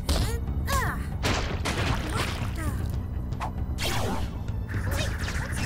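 Cartoon action music with fight sound effects: several sudden whooshes and hits, and short vocal cries.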